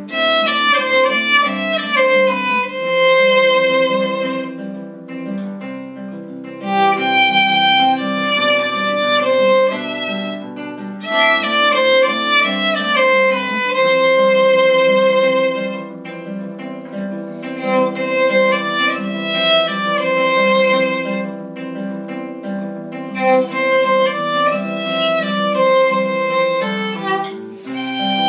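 Violin playing a melody over a plucked-string accompaniment.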